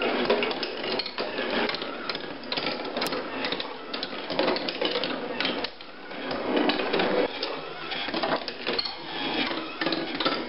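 Steel marbles rolling and clattering through a wooden marble machine: a continuous rattle of many quick clicks and knocks as the balls run down wooden tracks and drop onto each other, briefly quieter about six seconds in.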